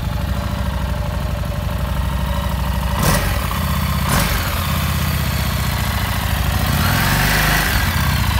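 Harley-Davidson Street Rod's 750 cc V-twin engine idling steadily just after being started, with two brief sharp sounds about three and four seconds in.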